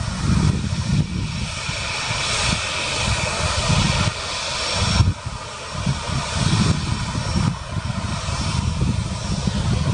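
Airbus A350's Rolls-Royce Trent XWB jet engines running at low taxi thrust as the airliner turns onto the runway: a steady rushing hiss with a faint high whine over a low rumble that swells and fades.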